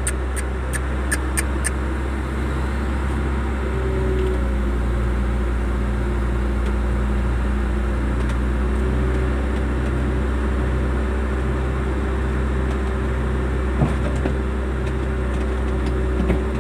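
An engine running steadily, a low hum with a tone that pulses on and off about once a second; a few sharp ticks near the start.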